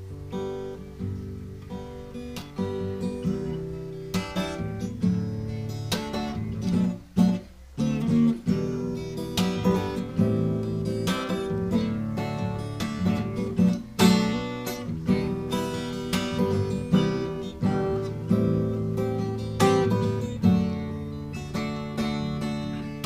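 Instrumental band music with strummed acoustic guitar and sharp rhythmic hits, the intro of a Brazilian gospel song before the singing comes in.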